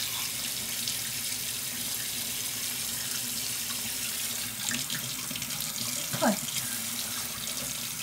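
Bathroom sink tap running steadily into the basin. About six seconds in there is a short sound that falls sharply in pitch.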